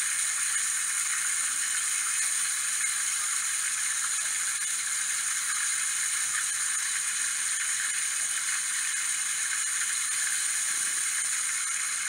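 Water rushing steadily over rocks at a waterfall, heard as an even, thin hiss with little bass.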